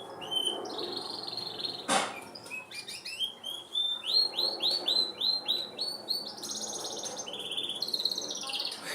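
A small bird singing: runs of quick high chirps and trills, one run at about four notes a second, with a sharp click about two seconds in.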